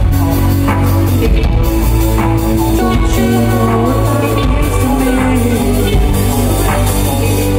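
Live electronic music played loud by a band on a venue's sound system: a deep steady bass, sustained synth tones and a regular beat.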